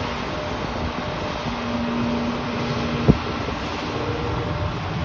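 Heavy diesel earthmoving machinery running steadily, with wind buffeting the microphone. A steady tone holds for about a second and a half, then a single sharp bang about three seconds in.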